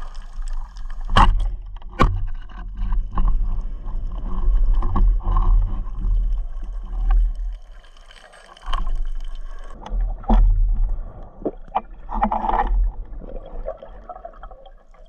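Underwater audio from a camera on a swimming spearfisher: uneven low rumbling of water moving over the camera housing, broken by sharp knocks and clicks, two of the clearest about a second and two seconds in.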